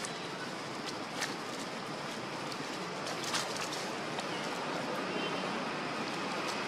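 Steady outdoor background hiss with a few faint short clicks about a second in and again past three seconds.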